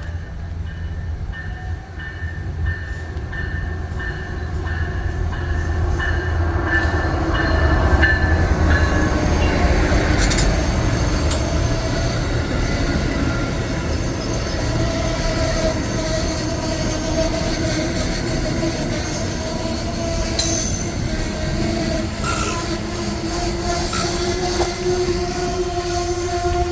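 Amtrak passenger train passing close by on street-running track: a low rumble grows louder over the first several seconds, then holds steady, with a steady whining tone over the second half.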